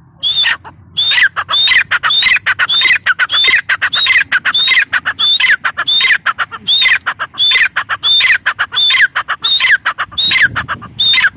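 Grey francolin calling: a loud, fast series of about twenty harsh notes, roughly two a second, each starting high and falling steeply in pitch. The series stops abruptly at the end.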